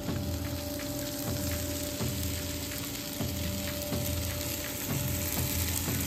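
Diced tomatoes and onions sizzling steadily as they fry in a nonstick pan on a camp stove, with a few light clicks of a wooden spoon against the cookware.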